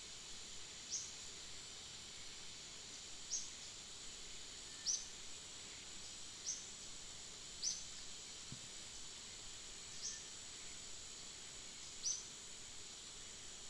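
Steady high drone of insects with a bird's short, high chirp repeated about every two seconds.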